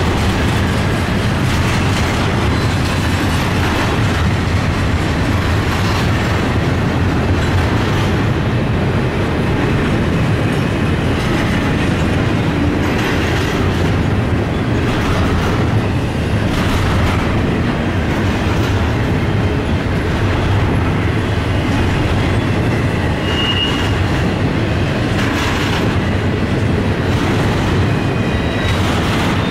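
Double-stack intermodal container cars of a Norfolk Southern freight train rolling past: a loud, steady rumble with wheels clacking over the rail joints and a brief high squeal about two-thirds of the way through.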